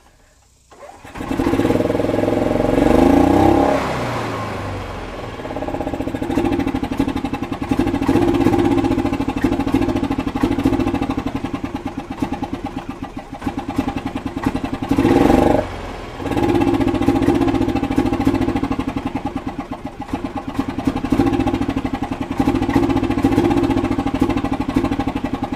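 Yamaha G29 golf cart's single-cylinder gas engine starting cold about a second in, then revving up and down unevenly as the accelerator pedal is pressed and let off, with a brief drop-out about two-thirds of the way through. It is not running smooth and is sluggish on this cold start, which the owner puts down to a carburetor fuel problem: not getting enough gas or getting too much.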